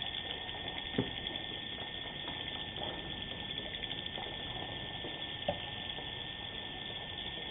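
Swiftlets clicking and twittering inside a swiftlet house, heard through a CCTV camera's microphone over a steady hiss and a thin electronic whine. Two short soft knocks sound, one about a second in and one later on.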